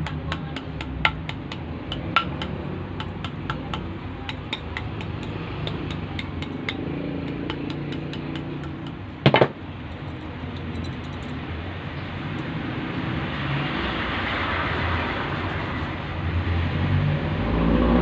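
Light tapping and clicking of hands and tools working the coils of a rewound washing machine motor stator, with one loud knock about nine seconds in, over a steady low rumble that grows louder near the end.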